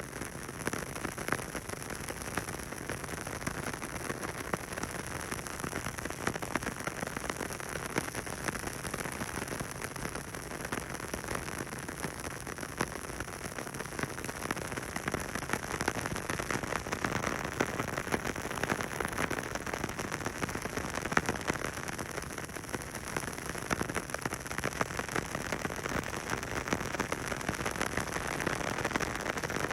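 Film crackle sound effect: a dense, steady crackling of many tiny pops and ticks over a hiss, growing slightly louder partway through.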